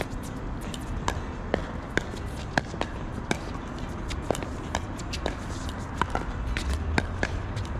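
Pickleball paddles striking a hard plastic pickleball in a doubles rally at the net: sharp pops, roughly one or two a second, some loud and some fainter.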